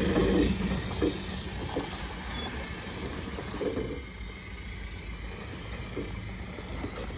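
Modified solid-axle Mahindra Thar's engine running at low speed off-road, a steady low drone that eases slightly after the first second.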